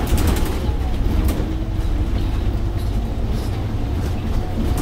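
Cabin noise of a Scania OmniLink three-axle bus under way: a steady low rumble from its diesel engine and drivetrain with road noise, and a few light rattles in the first second or so.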